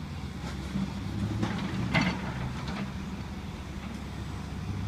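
Excavator's diesel engine running steadily while demolishing a building, with several knocks and crashes of rubble. The loudest crash comes about two seconds in.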